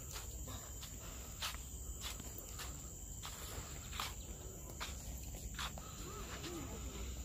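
Steady high-pitched drone of an insect chorus from the surrounding forest. Scattered sharp clicks and taps come through it, with a low rumble underneath.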